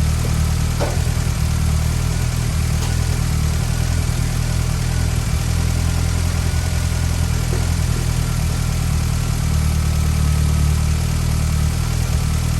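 Classic Mini's A-series four-cylinder engine idling steadily, just revived after ten years without running.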